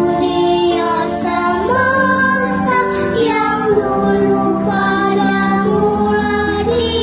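A children's choir of young girls singing a slow song together, their separate home recordings mixed as a virtual choir, with long held notes.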